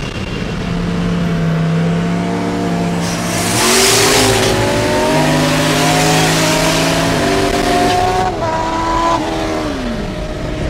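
Turbocharged 402 cubic-inch LS V8 of a Chevy pickup pulling hard at full throttle, heard from inside the cab, its pitch climbing in steps as it accelerates. A rush of noise comes about four seconds in.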